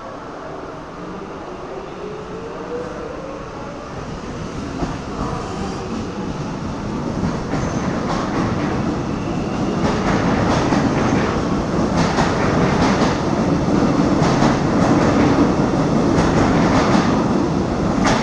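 Alstom X'Trapolis electric suburban train pulling away. The traction motors whine upward in pitch over the first few seconds, then wheels clickety-clack over the rail joints as the carriages run past, the sound growing louder.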